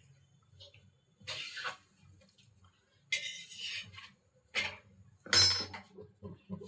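Kitchenware being handled: four short clinks and clatters of plates and utensils, spaced a second or two apart.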